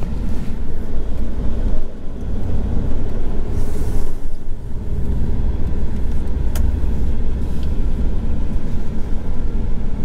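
An RV's engine and road noise heard from inside the cab while it drives: a steady low rumble.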